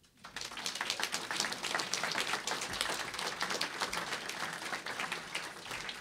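Audience applauding: dense clapping that sets in just after the start and carries on steadily.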